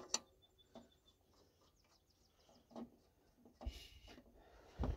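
Faint, scattered clicks and taps of hand tools on a tractor alternator's mounting bolt as the new alternator is fitted, with brief low rumbles near the end.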